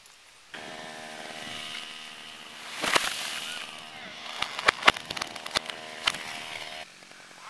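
A chainsaw runs steadily. About three seconds in, a loud crash comes as the tree trunk gives way and falls, followed by a string of sharp cracks as the wood and branches break. The saw cuts off suddenly near the end.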